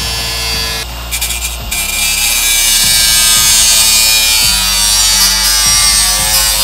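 Milwaukee cordless angle grinder cutting into the sheet-metal frame of a switchboard DIN kit: a loud, steady, high-pitched grinding hiss that eases briefly about a second in, then carries on. Background music with a steady bass line plays under it.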